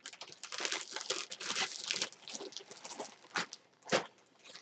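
Crinkling and rustling of packaging as an autographed jersey and its certificate are handled, with two sharper crackles late on.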